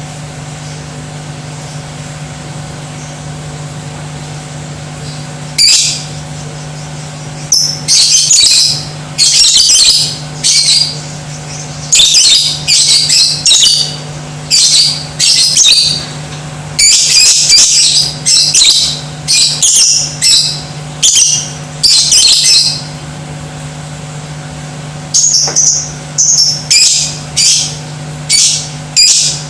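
Lovebird giving loud, shrill chattering calls in repeated bursts, starting about six seconds in and coming thick and fast until a short pause near the end, then resuming. A steady low hum runs underneath.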